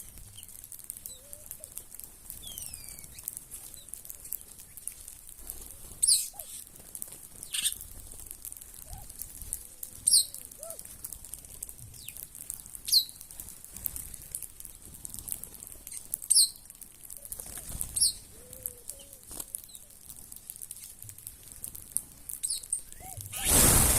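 Small wild birds calling around a feeding spot, with a sharp high chirp every two to three seconds and a few soft low calls over a steady high hiss. Near the end comes a loud burst of many wings flapping at once, as the flock takes off together.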